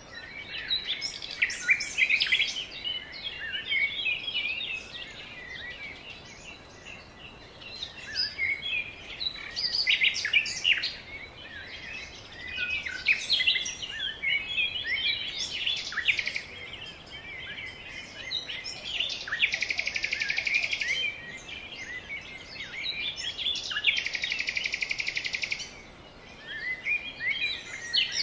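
Several songbirds singing and calling, a dense mix of short chirps and whistles. Twice in the second half comes a fast buzzing trill, each lasting one to two seconds.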